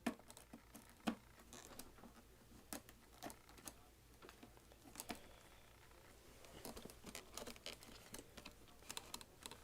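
Faint handling noises: scattered light clicks and rustles of the vacuum's plastic hose and parts being handled, with the vacuum switched off.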